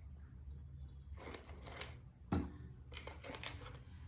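Close-up chewing and crunching of fried cheese shrimp, a few crisp bites with the loudest crunch about two seconds in, over a faint steady low hum.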